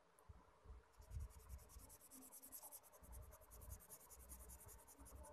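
Red felt-tip sketch pen scribbling rapidly back and forth on paper, colouring in a small area: a faint, even run of quick scratchy strokes starting about a second in, with soft low thumps under it.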